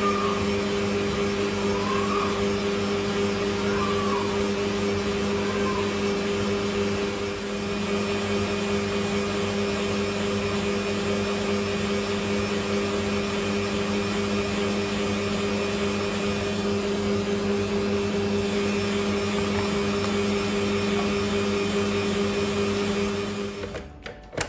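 An electric kitchen appliance runs with a steady, even hum, then cuts off suddenly about a second before the end.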